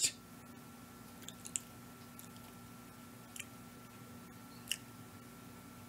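Low room tone with a faint steady hum and a handful of soft, scattered clicks.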